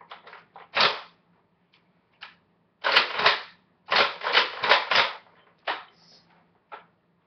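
Short, sharp gunshot-like pops: one about a second in, a pair near three seconds, then a quick run of about five between four and five seconds, with a couple of small ones after.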